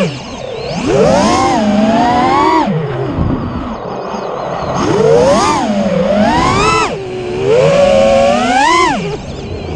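Armattan Rooster FPV freestyle quadcopter on a 4S battery, its brushless motors and propellers whining as heard from its onboard camera. The pitch climbs and falls with throttle, with three big punches peaking about a second in, about five seconds in and near the end.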